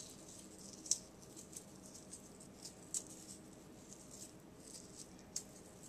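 Hands working a dry spice rub into raw pork spare ribs: faint, irregular small ticks and crackles, the sharpest about a second in, at three seconds and near the end.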